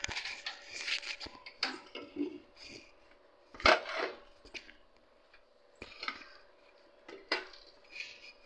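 Stainless steel plates and pots clinking and knocking as they are handled on the stovetop, in irregular knocks with the loudest about three and a half seconds in, over a faint steady hum.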